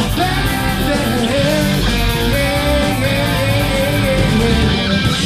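Live rock band playing loudly, with electric guitars, drums and keyboard, and a man singing over them.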